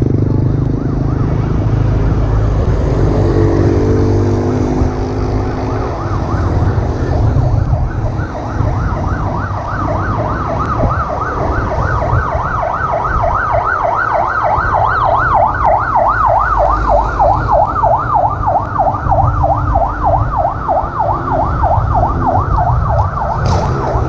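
An emergency vehicle's siren yelping, its pitch sweeping rapidly up and down. It comes in faintly and grows clearer from about ten seconds in, over the steady low rumble of road traffic.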